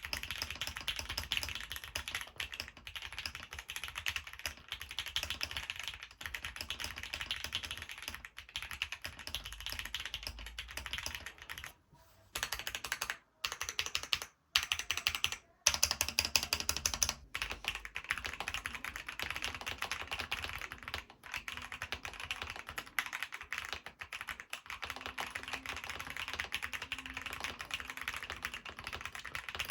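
Fast, continuous typing on a mechanical keyboard fitted with aftermarket keycaps, with a few brief pauses about halfway through.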